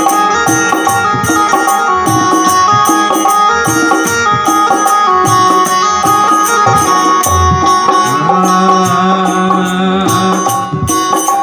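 Instrumental interlude of a Hindi devotional bhajan: a melody instrument playing over a steady hand-drum rhythm, with no singing.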